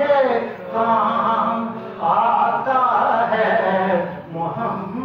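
A man reciting a naat, singing into a microphone in long, wavering melodic phrases with no instruments, the phrases breaking briefly about two seconds in and again near the end.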